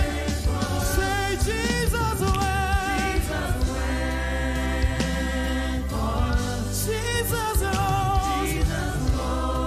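Gospel worship song: a choir and congregation singing "Jesus went for us, Jesus rose for us" over steady instrumental backing.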